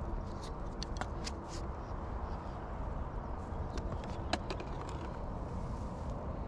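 Scattered sharp clicks and rustles as a landing net holding a small pike is handled, the sharpest about four seconds in, over a steady low rumble.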